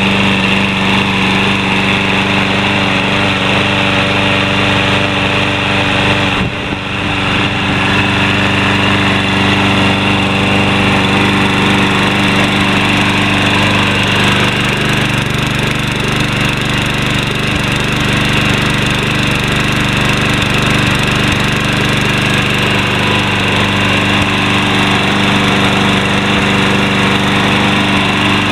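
Briggs & Stratton 675 series 190cc single-cylinder engine on a Troy-Bilt push mower running steadily just after starting on its automatic choke. Its clogged air filter has just been cleaned. The engine note dips briefly about six seconds in, then runs on evenly.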